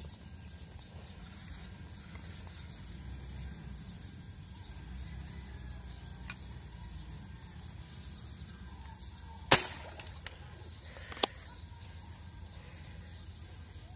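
A single air rifle shot into a fish pond about two-thirds of the way in, sharp and loud with a short tail, from an air rifle rigged with a fishing reel for shooting fish. A light click comes a few seconds before it and another sharp click about two seconds after, over a steady high-pitched drone.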